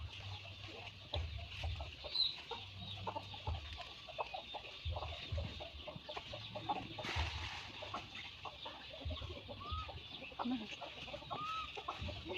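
Chickens clucking faintly, with a couple of short arched calls near the end, over a steady high hiss.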